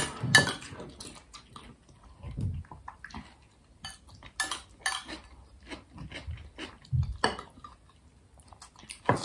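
Metal spoons clinking and scraping irregularly against ceramic bowls of okroshka, a cold soup, mixed with the mouth sounds of two people eating.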